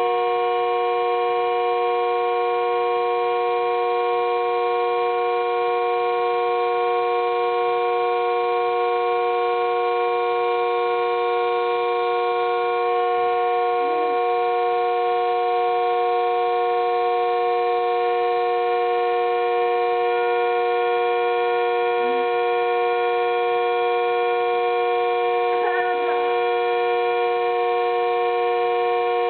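Whistling teapot held at the boil: a steady, loud whistle of several notes sounding together like a chord, not changing in pitch.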